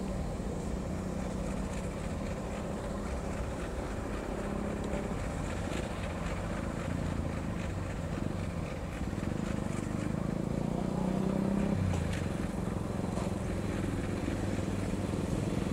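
Diesel locomotive running at a low, steady engine note as it creeps along at about 10 km/h hauling a few old freight wagons, with a few light knocks; it grows a little louder about halfway through as it draws nearer.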